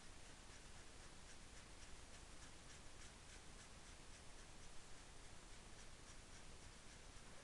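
Faint scratching of a drawing tool on T-shirt fabric, in short strokes several times a second.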